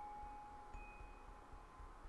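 Soft chime-like tones ringing out. One clear note slowly dies away, and a fainter, higher note comes in a little under a second in.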